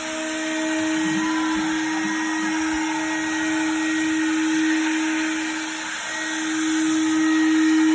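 Spindle motor of a homemade mini CNC milling machine running with a steady whine and hiss while milling brass; the level dips briefly about six seconds in.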